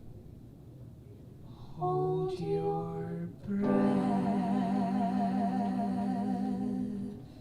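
Wordless singing: two short held notes about two seconds in, then a long note with vibrato held for about three and a half seconds before it stops near the end.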